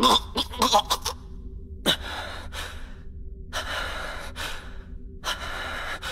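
A young man breathing hard, with a short strained groan at the start and then three long ragged breaths about a second and a half apart. It is the panting of exhaustion after overusing his fire ability.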